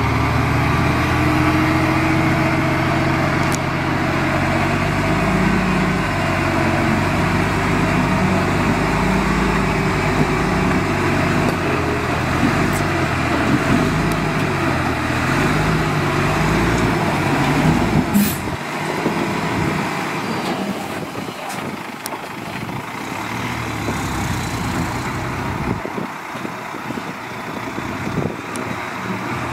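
Heavy diesel engine of earthmoving machinery working under load, its pitch rising and falling as it revs. About eighteen seconds in there is a brief sharp sound, and the engine then drops to a quieter, lower running.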